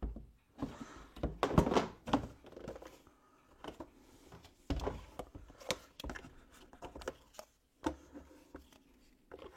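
Hard plastic parts of a flat mop and bucket set being handled and fitted together: irregular knocks, clicks and light rattles, with a louder cluster of knocks about a second and a half in.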